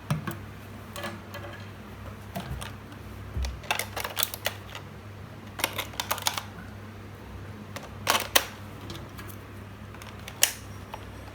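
Irregular plastic clicks and taps from a toy concrete mixer truck being handled, in small clusters with a louder pair of clicks about eight seconds in, over a steady low hum.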